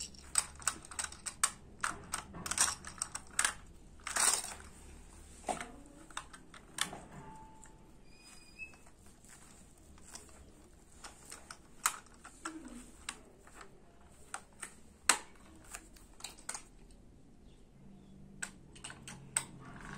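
Small plastic toy cars being handled, set down and pushed about on a play rug: irregular sharp clicks and clacks, the loudest about fifteen seconds in.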